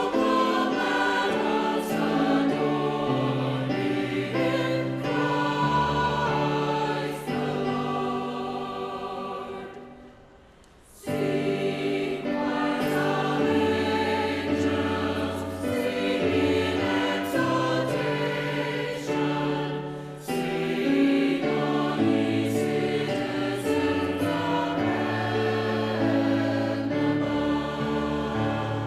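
A choir singing in several parts, holding sustained chords that change together, with a low bass line underneath. The singing breaks off briefly about ten seconds in, then resumes.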